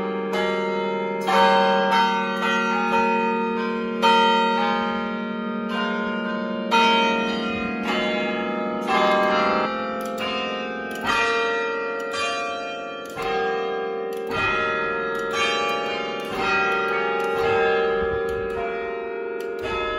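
Large bronze carillon tower bells ringing up close, with the three big swinging peal bells in motion. A new stroke sounds about once a second, and each rings on over a steady low hum from the bells.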